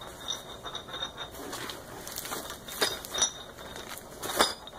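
Plastic bags of packing material being handled and lifted out of a cardboard box: rustling and crinkling, with scattered sharp clicks and taps, the loudest near the end.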